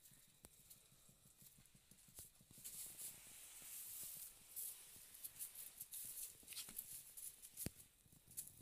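Faint rustling of straw with scattered light taps as young goat kids step about in their straw bedding, and one sharp click near the end.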